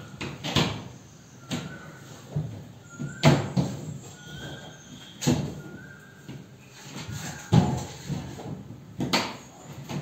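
PVC ceiling panels being pushed and knocked into place overhead: a series of irregular plastic knocks and clatters, with a few short squeaks as a panel slides in its channel.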